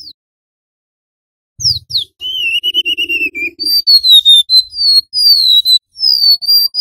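Golden-bellied gerygone (remetuk laut) singing a high, thin whistled song. It begins about a second and a half in with two quick falling notes and a longer wavering note, then a run of repeated falling whistles.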